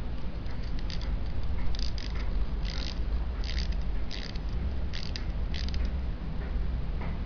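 A small clockwork wind-up toy helicopter (Tomy Capsule Plarail Harold) being wound by hand. About seven short, irregular bursts of gear clicking and scraping come over a low steady rumble.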